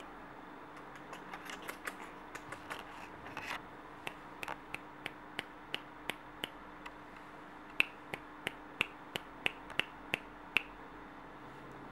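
A small child clicking his tongue: a run of sharp clicks, soft and uneven at first, then about three a second, louder for the last few seconds.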